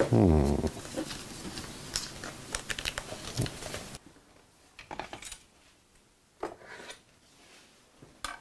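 Light clicks, clinks and rustles of kitchen items and paper being handled and set down on a tiled countertop, busy in the first half, then a few isolated knocks after the background hiss drops away suddenly about halfway through.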